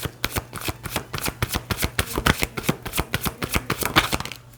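A deck of tarot cards being shuffled by hand: a quick, uneven run of card snaps and flutters that stops just before the end.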